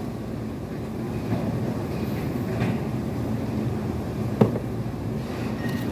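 Steady low rumble of restaurant room noise, with one sharp clink of tableware about four seconds in and a few fainter ticks.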